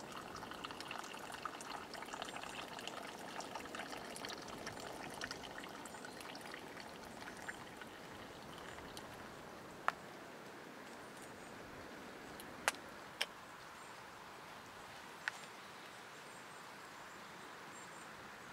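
Coffee poured from a stovetop moka pot into a cup, a trickling pour lasting about seven seconds. Later come four sharp clicks, over a steady background hiss.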